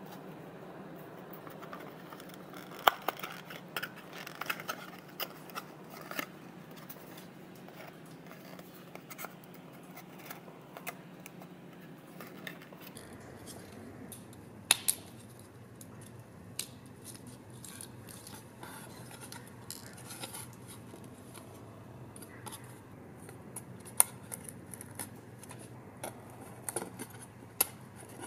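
Stiff printed card pieces of a paper dollhouse being handled and slotted together by hand: scattered sharp clicks and snaps of card with light scraping and rubbing between them.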